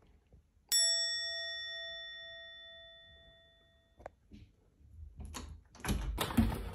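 A single bell-like ding, struck once, ringing out and fading for about three seconds before it cuts off suddenly; it sounds like an added sound effect. Near the end, music begins.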